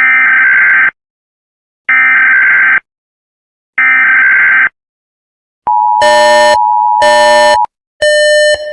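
Emergency Alert System SAME header: three screeching data bursts about a second apart. Then the two-tone attention signal begins, with other harsh beeping tones pulsing over it.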